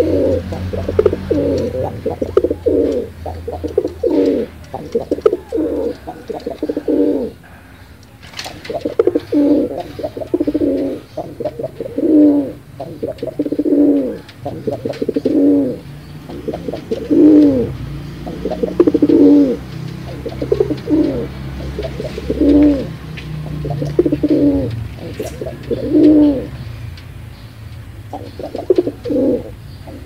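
Domestic pigeon cooing: a steady run of throaty coos, about one a second, with a short break about eight seconds in.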